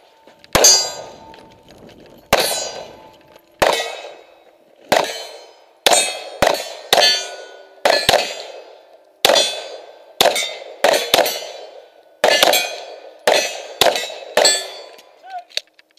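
9mm pistol shots, about sixteen in all, fired at a steady pace of roughly one a second with some quicker pairs. Each is followed by a metallic ringing from steel plate targets being hit.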